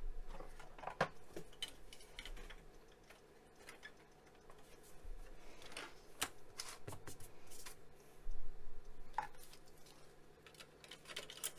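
Hands working inside an open computer chassis: scattered clicks, taps and rustles of plastic and metal parts and cables being handled, with one louder knock about two-thirds of the way through.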